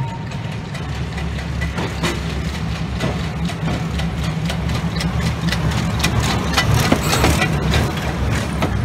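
Diesel engine of the Botchan Train, a replica steam-locomotive tram, running with a steady low rumble as it pulls in and passes close. Rapid clicking and clatter of its wheels on the street tram rails grows denser about two thirds of the way in.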